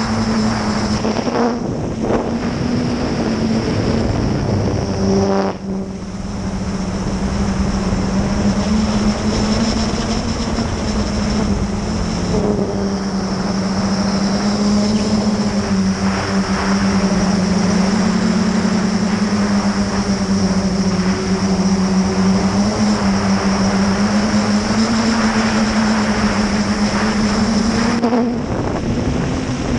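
Traxxas Aton quadcopter's motors and propellers buzzing in flight, close up with wind rush. The pitch wanders up and down with the throttle and dips briefly a few times.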